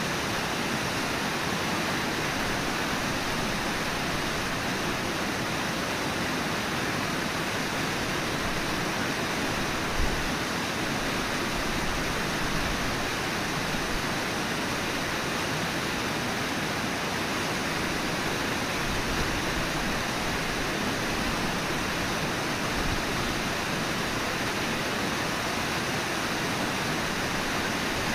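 Steady rushing of the Brooks River's flowing water, with one brief low thump about ten seconds in.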